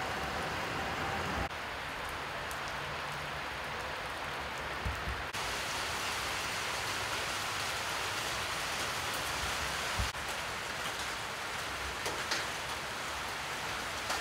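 Steady rain falling, an even hiss whose texture shifts abruptly twice, with a few faint knocks.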